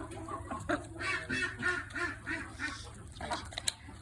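A flock of backyard poultry calling over one another in many short, overlapping calls, thickest in the middle. There is a single sharp click near the end.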